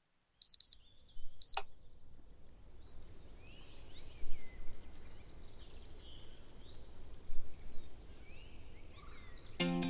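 Bedside alarm clock beeping in short high bursts, cut off with a click about a second and a half in as it is switched off by hand. Afterwards faint bird chirps over a quiet room.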